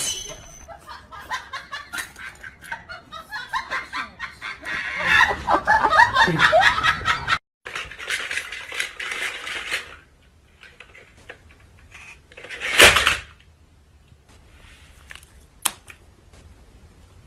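People laughing and giggling while a knife cuts into a cake, with clinks like cutlery on a plate. After a sudden break comes a couple of seconds of hissing noise, then quiet with one loud rushing burst about two-thirds of the way in and a sharp click near the end.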